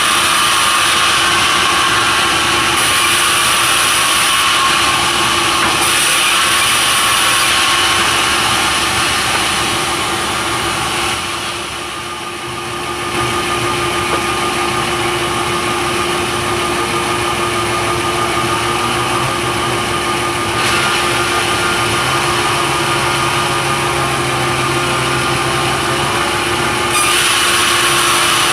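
Sawmill saw and its drive running steadily while cutting timber for pallet stock, with a steady hum and a brief drop in level about twelve seconds in.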